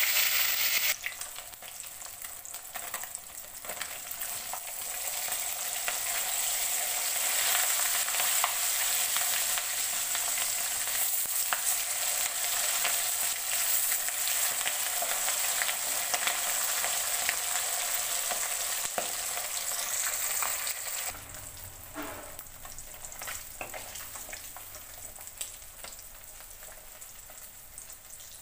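Pohala fish shallow-frying in hot mustard oil in a metal kadai. There is a loud burst of sizzle as the fish hits the oil, then steady sizzling with the clicks and scrapes of a slotted steel spoon turning the pieces against the pan. The sizzle drops sharply about 21 seconds in and stays fainter.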